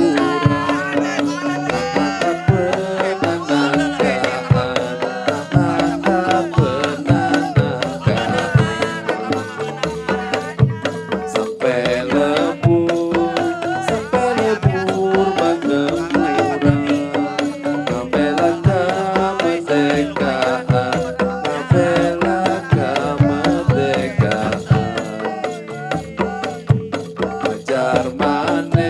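Sundanese traditional ensemble music: calung renteng bamboo notes playing a repeating stepped melody over a steady pattern of drum strikes.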